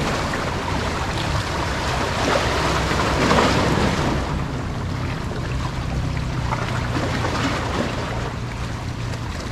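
Steady wind and sea-water noise at the shoreline, with a low steady hum underneath.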